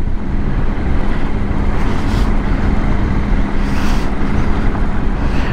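Triumph Tiger 800 motorcycle's three-cylinder engine running at a steady pace with a constant hum, heard from the rider's camera together with a dense rush of wind and road noise as it rides onto an unsealed stretch.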